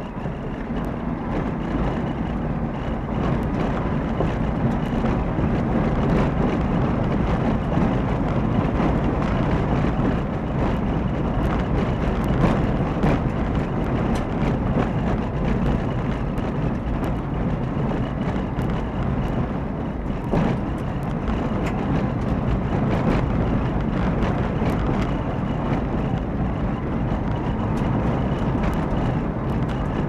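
Car driving along a mountain forest road, its tyre and engine noise picked up by a dashboard camera inside the cabin. It swells over the first few seconds and then runs steadily, with frequent sharp ticks and knocks throughout.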